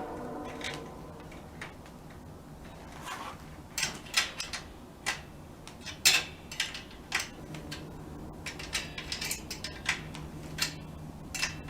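Irregular metallic clicks and clinks of a bicycle kickstand being seated and secured on the frame with a small hand tool.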